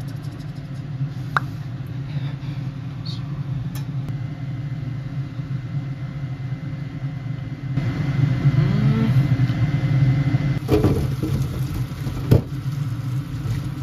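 A steady low hum throughout. About eight seconds in, a pot of boiled edamame and hot water is poured into a stainless steel mesh colander in a steel sink, a rushing pour with two sharp metal clanks near the end.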